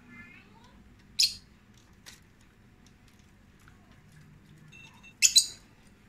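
Lovebirds calling: a short shrill chirp about a second in and a louder doubled shriek near the end, with a faint click between.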